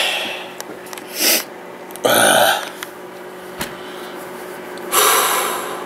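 A man's breath and throat noises close to the microphone: a short sniff about a second in, a louder gusty out-breath or burp about two seconds in, and a long exhale about five seconds in, over a faint steady hum.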